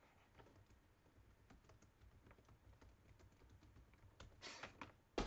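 Faint typing on a computer keyboard: irregular key clicks, with a quicker, louder run of keystrokes about four and a half seconds in and one sharp, louder click near the end.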